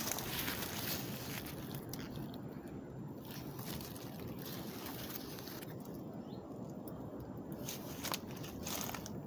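Rustling and crackling of garden foliage, with scattered clicks over a steady low rumble.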